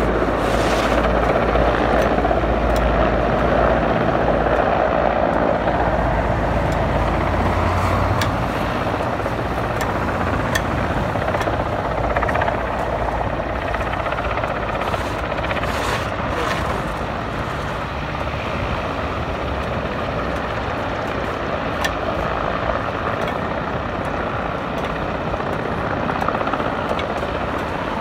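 Medical helicopter's rotors and turbine engines running as it descends to land, a steady heavy whirring with a deep rumble that eases a little about eight seconds in.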